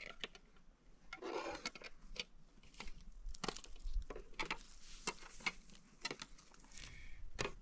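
An irregular series of light knocks and clicks, with a short scraping rustle about a second in.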